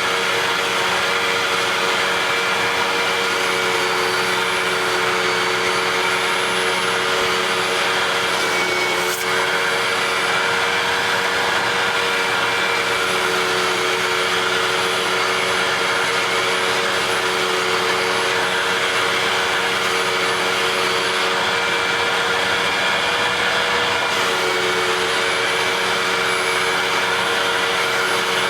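Vacuum cleaner running steadily with a constant motor whine. About nine seconds in there is a brief click and a momentary dip, and later the whine drops slightly in pitch.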